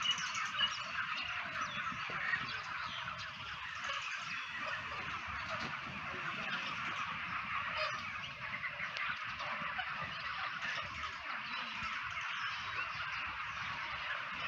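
Dense, steady chatter of many birds calling at once, with overlapping short calls.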